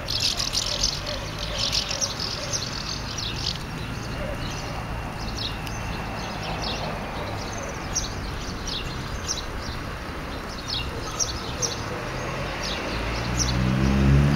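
House martins calling in many short, high twittering chirps, most frequent in the first few seconds, over a steady low hum. Near the end a low drone rises in pitch and grows louder.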